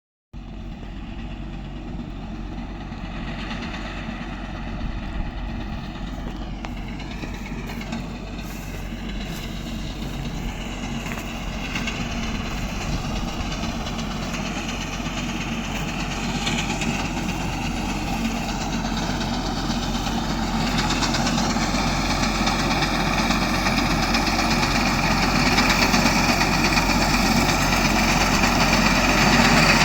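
Wheat harvesting machine running with a steady engine drone, growing steadily louder across the whole stretch.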